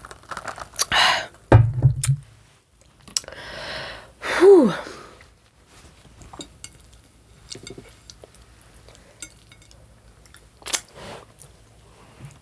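Close-miked slurping of a drink through a plastic straw, twice in the first five seconds, the second slurp ending in a short falling squeak, with a dull thump about a second and a half in. Then scattered small clicks and taps of the plate and food being handled.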